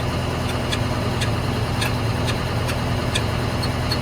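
A motor running steadily with a low hum, with light, irregular metallic clicks over it.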